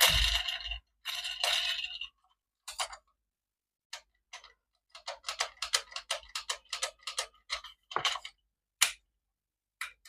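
Hands handling a toy and its packaging: a couple of brief rustles, then a quick run of small clicks, about five or six a second, and three single sharp clicks near the end.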